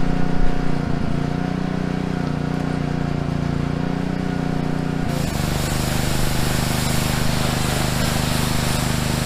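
Pressure washer running with a steady engine hum. About five seconds in, the spray starts with a loud hiss of water jetting onto a truck's camper shell, and the engine's tone drops as it takes the load.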